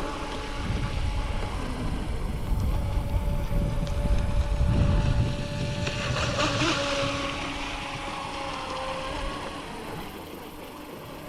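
Electric RC boat's motor whining steadily as it runs across the water, with wind rumbling on the microphone. A brief hissing rush comes about six seconds in, and the sound fades toward the end.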